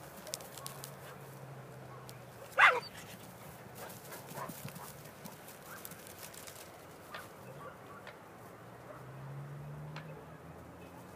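A dog yelps once, sharp and loud, about two and a half seconds in, during a fight between two dogs, with a few fainter short yips after it.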